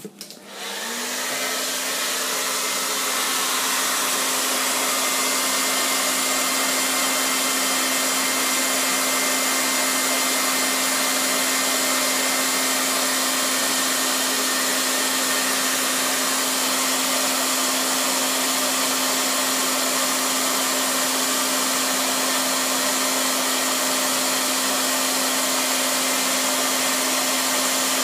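A hair dryer switching on with a click. Its motor spins up, rising in pitch over about the first second, then runs steadily with an even rush of blown air, heating heat-shrink tubing onto a charger cable.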